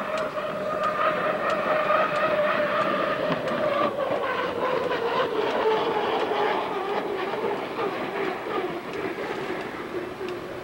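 Unlimited hydroplane running at racing speed past the shore: a steady engine whine whose pitch slowly falls as the boat goes by and moves away.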